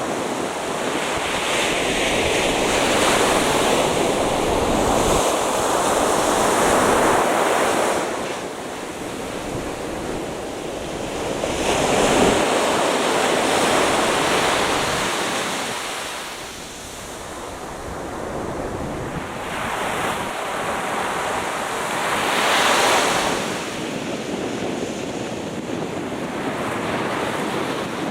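Atlantic Ocean surf breaking on the beach, a steady wash of noise that swells and ebbs as sets of waves come in, with the biggest surges about twelve seconds in and again a little past twenty-two seconds. Some wind buffets the microphone.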